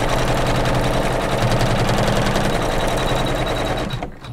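Embroidery machine stitching steadily at speed, running the tack-down stitch that fastens an appliqué fabric piece to the hooped background. It stops near the end.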